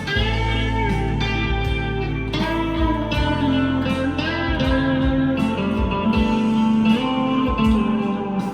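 PRS SE 245 electric guitar with brass saddles, played clean through an amp with reverb and delay: picked notes and chords that change every second or so and ring on into each other.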